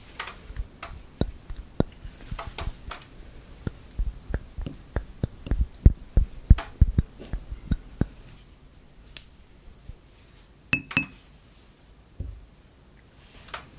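Spatula scraping and dabbing ketchup out of a small glass measuring cup into a ceramic mixing bowl: a run of soft taps and squelchy scrapes that thickens in the middle. Just before 11 seconds, two sharp ringing clinks of glass against ceramic, then a low thud.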